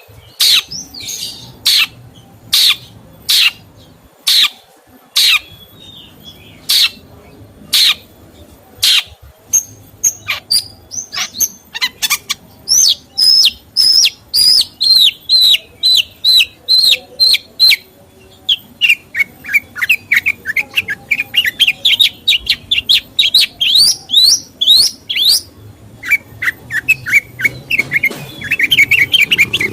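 A songbird calling and singing: sharp single calls about once a second, then from about ten seconds in, fast runs of short down-slurred whistled notes, including a long run that climbs steadily in pitch.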